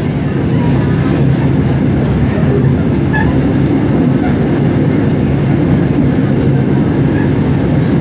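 Passenger train running at speed, heard from inside a carriage: a steady rumble of wheels and running gear.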